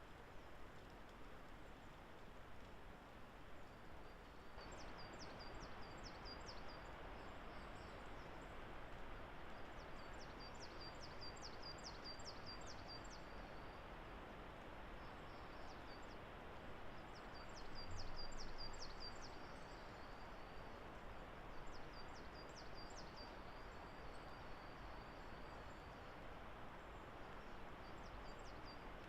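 A songbird singing five short phrases, each a quick run of high repeated notes, a few seconds apart, over a steady faint hiss of background noise that grows louder a few seconds in.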